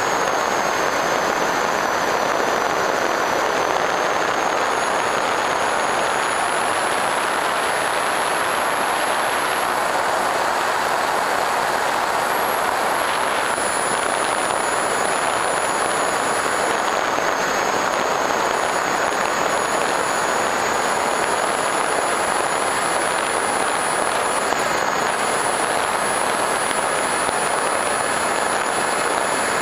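Electric FPV Raptor model plane in flight, heard from on board: a steady rush of wind and propeller noise with a thin high motor whine that shifts a little in pitch several times.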